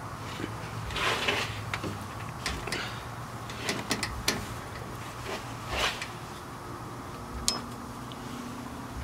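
Wrench working the belt tensioner and the serpentine belt being worked off the alternator pulley of a Honda Civic 1.8L: scattered metal clicks, knocks and short scrapes at irregular moments as the tension is released.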